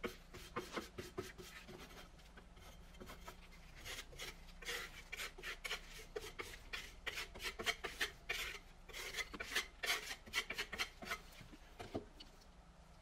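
Steel spatula scraping and smoothing waterproofing paste over a fabric sealing sleeve on a wall. It comes as a run of short scraping strokes, thickest from about four seconds in, and stops about a second before the end.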